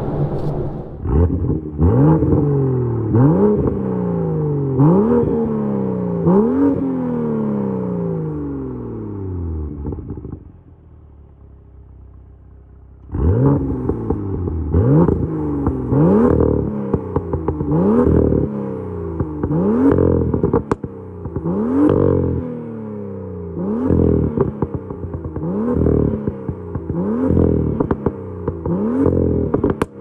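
BMW M2 F87's turbocharged straight-six, fitted with an aftermarket modified exhaust, being blipped repeatedly while stationary: each rev shoots up and falls away slowly, with short sharp cracks at the tops of several blips. After about ten seconds it settles to a quieter idle for a couple of seconds, then the blips resume at about one a second.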